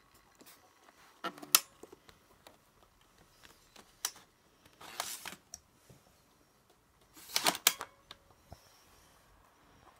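Handling noise from a hand at a fabric backpack and a handheld phone: a sharp click about a second and a half in, more clicks and short rustles around four and five seconds, and a louder cluster of clicks and rustling at about seven and a half seconds.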